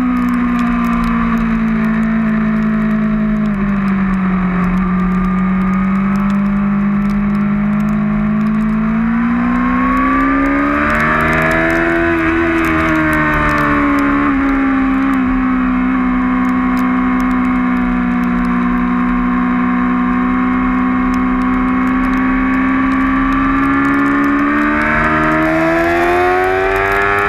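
2008 Yamaha R6's inline-four engine running at high revs under racing load. Its pitch sags about four seconds in, climbs back by about twelve seconds, holds steady, then rises again near the end.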